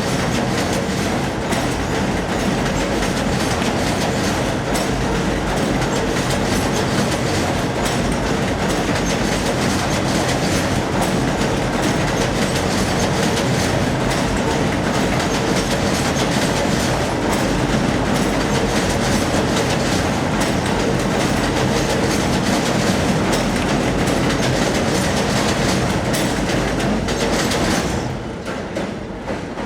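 N/Q subway train running past on the adjacent elevated tracks: a loud, steady rumble with wheel clatter over the rail joints, dying away near the end.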